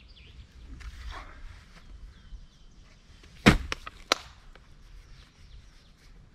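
A single sharp knock or crack about halfway through, followed by a few lighter clicks within the next half second.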